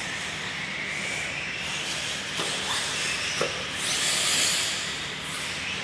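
Radio-controlled off-road car running on a dirt track: a whine that slowly rises in pitch, a hissing rush that swells about four seconds in, and two sharp knocks about a second apart.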